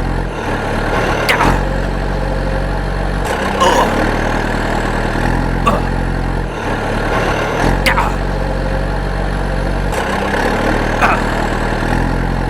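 Engine running steadily at idle, its low hum shifting slightly in pitch every couple of seconds, with a few short rising squeaks over it.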